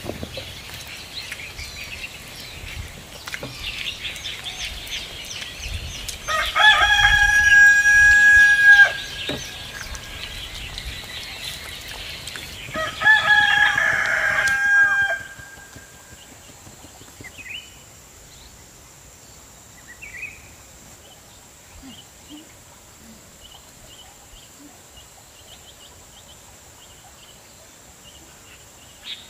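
A rooster crowing twice, each crow a loud held call of about two to three seconds, with small birds chirping faintly around it.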